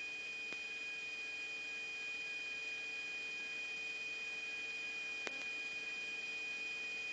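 Faint steady high-pitched tone with a lower hum over light hiss: the background of a radio recording between transmissions. One faint click about five seconds in.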